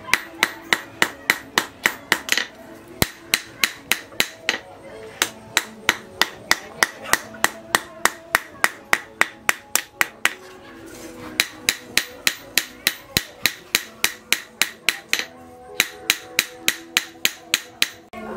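Hand hammer striking a red-hot knife blade, forged from a tractor plough disc, on a steel post anvil. The blows come at a steady pace of about three a second, broken by a few short pauses.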